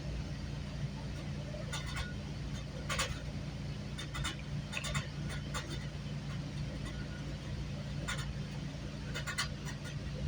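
Interior of a moving GO Transit commuter train: a steady low running hum with scattered, irregular clicks and light rattles.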